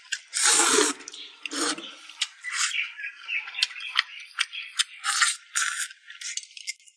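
Noodles slurped through the lips in two long sucking pulls, then chewing and shorter slurps with many wet smacking clicks, close to the microphone.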